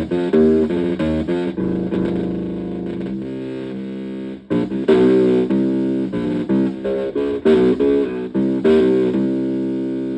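Ring modulator and noise generator pedal putting out quick runs of stepping, robotic pitched notes, each run ending on a held note that slowly fades, with a brief cut-out about four and a half seconds in.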